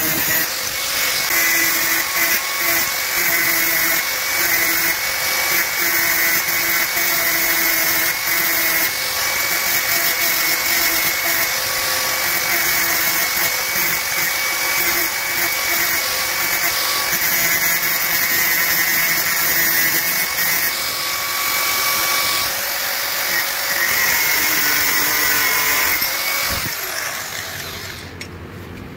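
Handheld angle grinder running, its disc grinding a steel rebar rod to shape it into a drill bit: a steady high whine over a grinding hiss, the pitch dipping slightly as the disc is pressed into the metal. Near the end the grinder is switched off and winds down.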